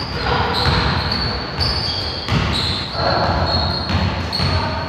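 Basketball being dribbled on a gym floor, with repeated ball bounces, and short high sneaker squeaks from players cutting on the court. The sound echoes in the hall.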